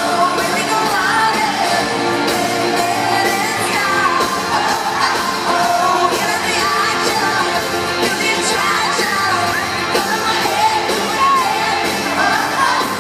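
Live country-pop rock song: a woman singing lead into a handheld microphone over a full band with a steady drum beat, recorded from the audience in an arena.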